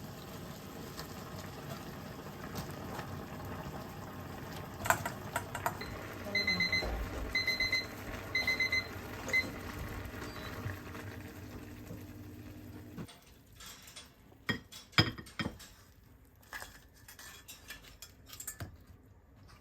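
A household appliance beeps in three short runs of high electronic pips, then once more, over a steady hum of something running. The hum cuts off about thirteen seconds in, leaving scattered clicks and light knocks.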